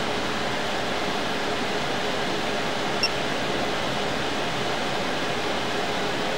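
Steady, even hiss-like noise, like a fan or running machinery, with one brief high blip about three seconds in.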